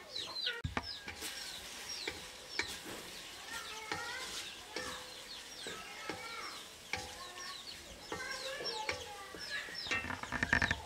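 Chickens clucking, with a spatula scraping and knocking against a metal wok as vegetables are stir-fried; a quick run of metal clatter comes near the end.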